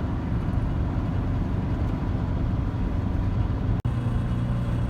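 VW bus engine and road noise, droning steadily while driving. The sound cuts out for an instant about four seconds in.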